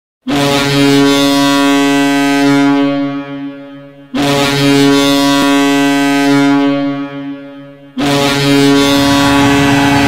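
Providence Bruins goal horn, a deep air horn, sounding three long blasts about four seconds apart, each held and then fading away. A steady rush of noise comes in under the third blast.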